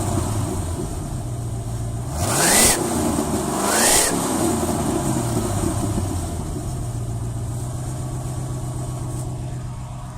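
1991 Ford F-250's 351 Windsor V8 running, revved twice about a second and a half apart, with a burst of hiss at the top of each rev, then settling back to a steady idle. This is the truck that began making odd noises after sitting unused for a couple of weeks.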